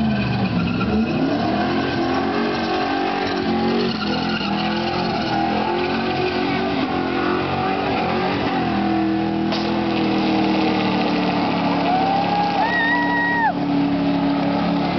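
Holden sedan's engine held at high revs as its rear tyres spin in a smoky burnout, the engine pitch dipping and climbing at first, then holding one steady note from about nine seconds in. A short high whistle-like tone sounds a little past twelve seconds.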